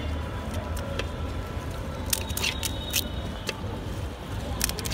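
Crisp fuchka puris being cracked open and stuffed by hand, giving several sharp crunches and clicks between two and three seconds in and another near the end, over a steady low street rumble.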